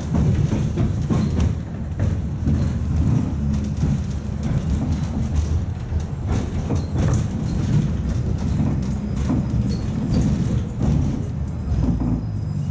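Inside a 71-619A tram running along the track: a steady low rumble of wheels on rails, with scattered knocks.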